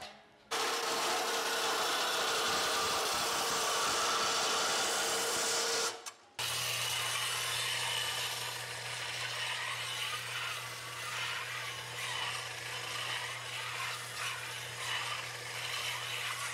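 Belt sander grinding the edge of a bent sheet-metal panel: a loud, rough grinding rasp over the machine's steady motor hum. The sound breaks off for a moment about six seconds in, then starts again.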